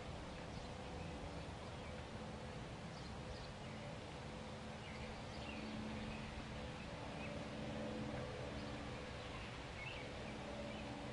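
Open-air field ambience: a steady background hiss and a faint low hum, with brief bird chirps scattered through it.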